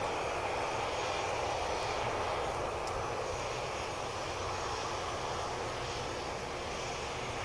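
Airbus A321 airliner's jet engines running as the aircraft moves past: a steady rush of engine noise that slowly fades.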